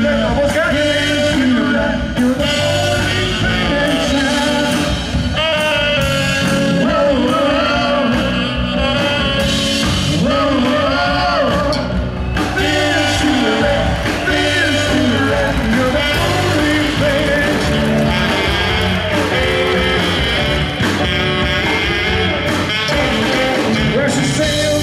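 Live rock band playing a song with a steady beat, with a sung melody over it.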